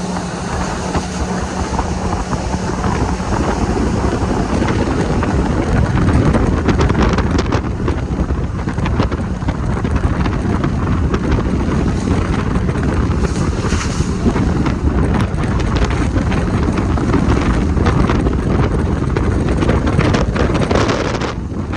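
Jet boat under way at speed: a steady engine and water roar, with heavy wind buffeting on the microphone.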